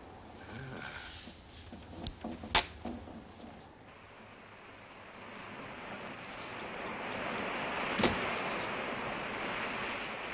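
Sea surf washing on a rocky shore, swelling to a crash about eight seconds in, with an insect chirping in a faint, high, even rhythm of about three chirps a second. A couple of knocks come in the first three seconds.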